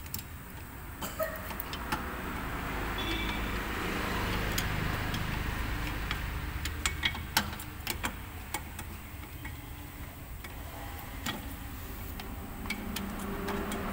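Light metallic clicks and clinks of drum brake shoes, springs and small hardware being handled and fitted onto the backing plate, a few sharper clicks about halfway through, over a steady low rumble.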